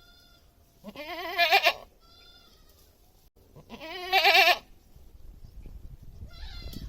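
Goat bleating: two loud, quavering bleats about a second long each, some three seconds apart, then a fainter, higher bleat near the end.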